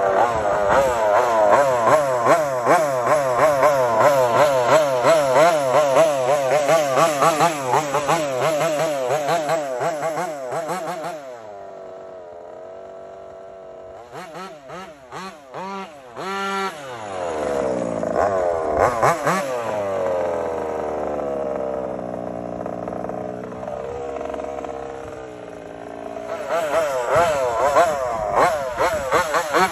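Small two-stroke 35cc gas engine of a 1/5-scale RC car (a Taylor RC 35cc in an MCD XS5 Max) revving hard close by, its pitch rising and falling fast. About eleven seconds in it fades as the car drives off, and its pitch glides down, up and down again as it runs at a distance. Near the end it is close and revving hard again.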